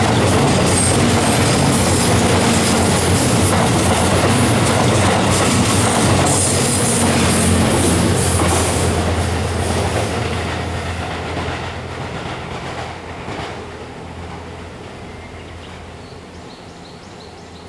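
JR West Series 87 Twilight Express Mizukaze diesel-hybrid train passing close by: loud wheel-on-rail clatter over a steady low engine hum. About ten seconds in it starts to fade steadily as the train draws away.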